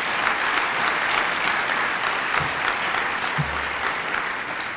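Audience applauding in a large hall, a steady patter of many hands clapping that fades near the end.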